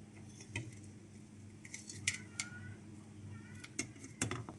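A few light, irregular clicks and clinks of a utensil against a plate as fries are placed on it.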